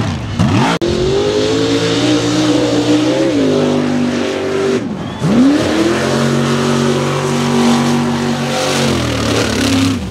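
Mud racing truck's engine running flat out at wide open throttle, held at high revs. It breaks off for an instant just under a second in, then about five seconds in it drops briefly and climbs quickly back up to a steady high pitch.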